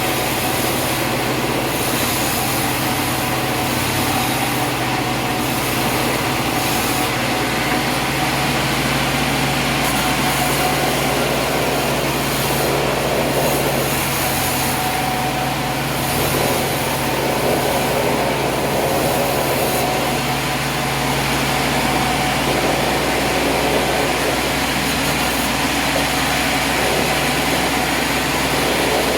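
Sawmill machinery running steadily: a constant engine hum under an even, continuous hiss, with no break or change in level.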